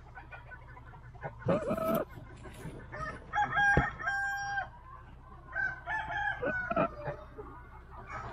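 Rooster crowing three times, the middle crow the longest and held, with clucking between.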